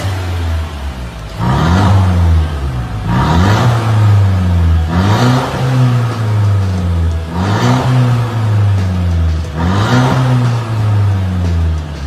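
Mercedes-Benz W205 C-Class with an A Performance valved cat-back exhaust, valves open, idling and then revved in five short blips about two seconds apart, each rising quickly in pitch and dropping back to idle.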